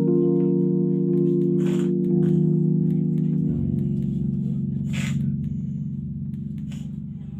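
Background music of held keyboard chords, changing to a lower chord about halfway through and slowly fading out.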